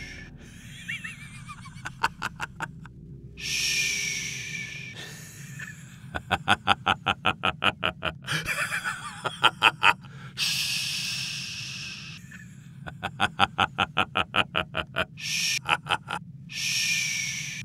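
A man's manic laughter: long wheezing, whistling gasps for breath alternating with runs of rapid staccato laughs, about seven a second, over a low steady music drone.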